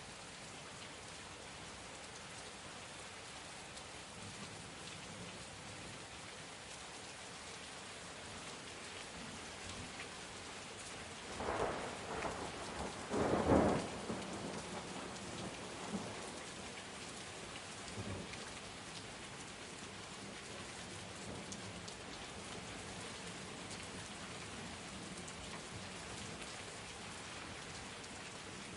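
Steady rain falling, with a short peal of thunder about halfway through: two loud bursts in quick succession, the second the loudest.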